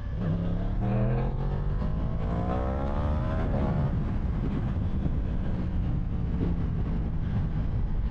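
Yamaha R1's inline-four engine accelerating away. The revs climb, dip briefly about a second in as it changes gear, then climb again for a few seconds. After that a steady rush of wind and road noise takes over.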